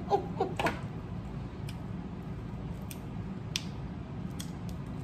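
Cooked crab leg shells being picked apart by hand: scattered sharp clicks and snaps of shell, a few seconds apart.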